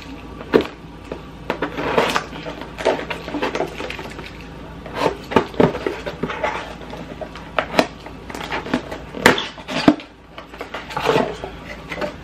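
Cardboard shipping box being torn open by hand: irregular ripping, scraping and knocking of the cardboard and its tape strip as the flaps are pulled back.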